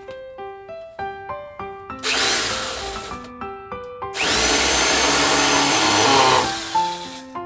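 A power drill runs twice over piano background music: once for about a second, then for about two and a half seconds, the second run starting with a rising whine as the motor speeds up.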